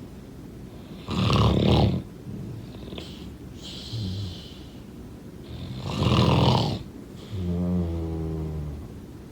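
Snoring: two loud, rough snores about a second in and about six seconds in. The first is followed by a short hissing breath, the second by a low, steady droning breath.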